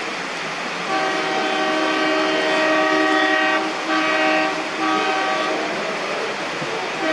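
Diesel locomotive horn, that of an ALCo WDM-3A, sounding one long blast of nearly three seconds, then two short blasts, with another starting right at the end. The horn plays several tones at once, over a steady hiss.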